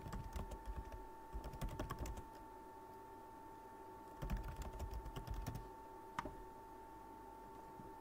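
Typing on a computer keyboard in two quick bursts of keystrokes, the second starting about four seconds in, then a single keystroke about six seconds in. A faint steady tone hums underneath.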